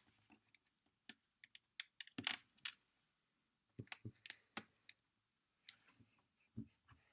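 Small plastic LEGO pieces clicking and clattering as they are handled and placed: scattered sharp clicks in small clusters, the loudest just over two seconds in.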